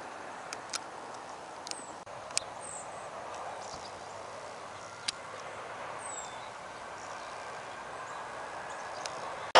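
Quiet outdoor ambience: a faint steady background hum with a few short bird chirps and several sharp clicks scattered through it.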